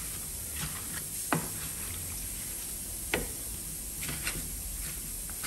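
Wooden spatula stirring sticky gummy candies through thick chamoy sauce in a glass baking dish: soft wet squishing, with a few sharp clicks.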